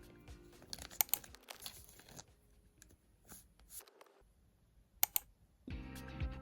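Plastic sticker packaging being handled, crinkling and crackling with a few sharp clicks. Background music stops shortly after the start and comes back near the end.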